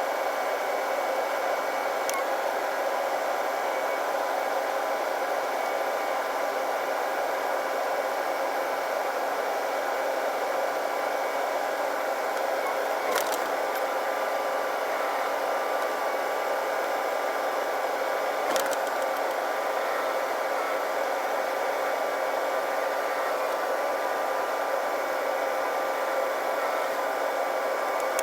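Steady whir of a New Holland T8 tractor's cab air-conditioning fan, with the running tractor underneath as a few steady tones. Two brief clicks come about halfway and two-thirds of the way through.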